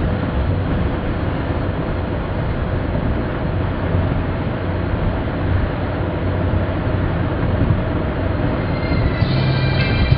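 Steady road and tyre noise heard inside a moving car's cabin at highway speed, with a low hum underneath. Music starts near the end.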